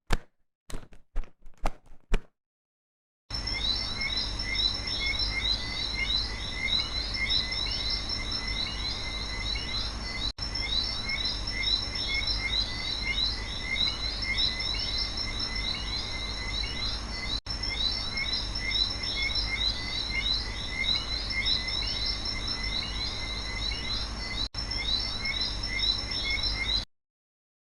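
A few sharp clicks, then after about three seconds a steady outdoor nature ambience full of many small chirping calls, like frogs or birds. It breaks off briefly about every seven seconds, as if looped, and stops near the end.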